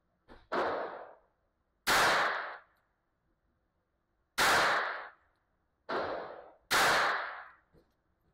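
Beretta 950 Minx .22 Short pocket pistol firing five slow, unevenly spaced shots, each a sharp crack with a short echo in the indoor range; two of the shots are softer.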